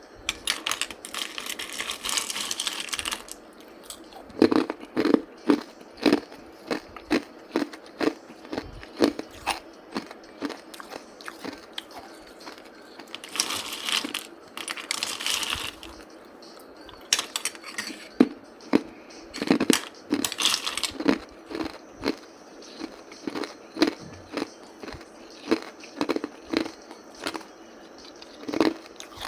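A person biting into and chewing hard ice. Bursts of crackly crunching as the ice breaks alternate with runs of regular chewing crunches, about two a second.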